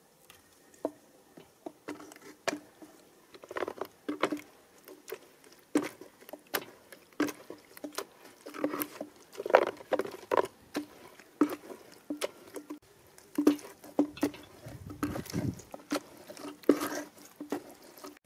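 Cooked tomato pulp being worked through a perforated metal sieve in a wooden box: irregular wet splats and squelches mixed with sharp knocks and clicks, with a few longer sloppy passes.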